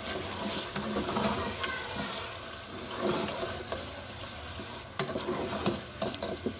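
Chicken pieces sizzling in oil and masala in a pot, stirred and scraped with a wooden spatula, with a few sharp knocks near the end.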